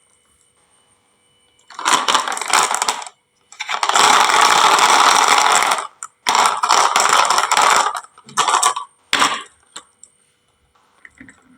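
Marbles rattling and clattering down a HABA wooden marble-run slope, in several bursts a few seconds long with short gaps between them, the last two brief.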